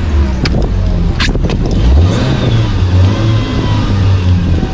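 A Moke's engine running, revved up about two seconds in and then held at a raised speed, with a couple of sharp clicks near the start.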